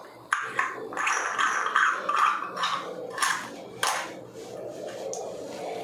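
Chrome wall-mixer cover flange being fitted over the mixer leg by hand, scraping and clinking against the tiled wall, with a few sharp clicks, the loudest two a little after three seconds and just before four seconds in.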